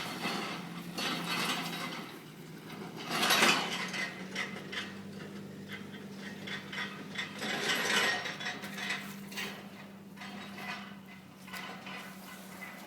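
A truck making mechanical clattering and ratcheting noises over a steady low hum, with two louder noisy surges, one about three seconds in and one about eight seconds in.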